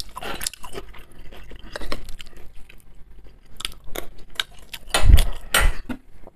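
Close-miked chewing and wet mouth sounds of a man eating fried sausage and buckwheat, with many small clicks, some from a spoon, and one louder low thump about five seconds in.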